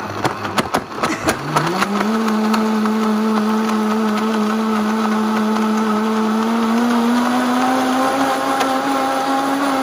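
High-powered countertop blender chopping frozen banana and ice: rapid knocking of chunks hitting the blades and jar for about the first second, then the motor speeds up into a steady, very loud whir as the mix turns smooth. The sound shows the frozen banana, which had jammed, now being cut.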